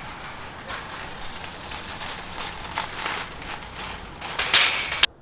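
Metal shopping cart rolling over concrete pavement, its wheels and basket rattling and clattering, growing louder as it comes close and loudest near the end before cutting off suddenly.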